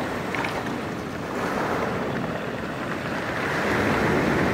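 Sea surf washing onto a pebble beach, a steady rush that swells toward the end, with wind buffeting the microphone.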